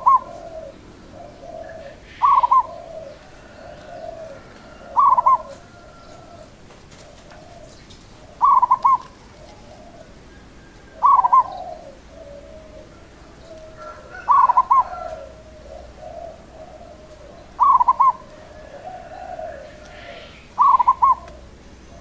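Zebra dove (perkutut) cooing: a short, loud trilled coo phrase about every three seconds, eight in all, with softer, lower coo notes running between them.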